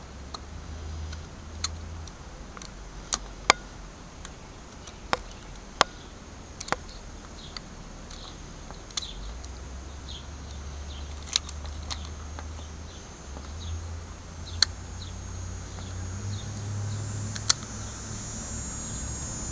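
Utility knife blade cutting into a wooden walking stick: scattered sharp clicks at irregular intervals, about a dozen in all, as the blade bites and slivers of wood snap off, over a low steady hum.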